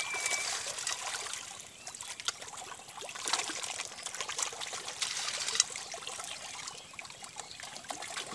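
A dense crowd of pond fish thrashing at the water's surface as they feed: a constant patter of small splashes with many sharp little pops and clicks.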